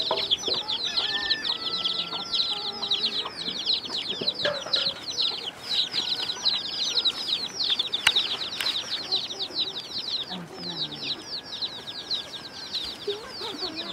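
Many small birds chirping without a break: a dense stream of quick, high, falling chirps. One sharp knock about eight seconds in.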